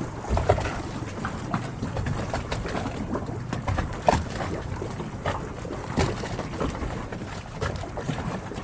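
Harbour water lapping and slapping against the hulls of moored yachts: a steady low wash with frequent small knocks and splashes, the sharpest about four seconds in and again about six seconds in.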